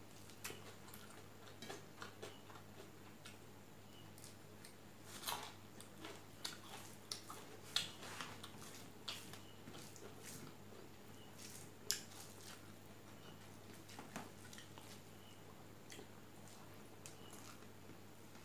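Close-miked eating: soft, irregular wet clicks and smacks of chewing and of fingers mixing rice and fish curry on a steel plate, with a couple of sharper clicks, over a faint steady low hum.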